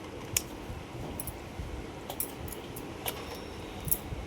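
Tableware clinking during a meal: scattered light metallic clicks of plates and utensils, the sharpest about half a second in and near the end.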